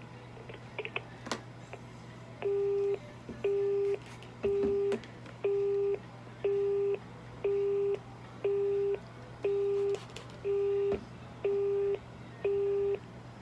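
Telephone busy tone from a phone left on speaker, the sign that the other end has hung up: a steady low beep pulsing once a second, half a second on and half a second off, starting about two and a half seconds in. Before it come a few light clicks and one sharp tap.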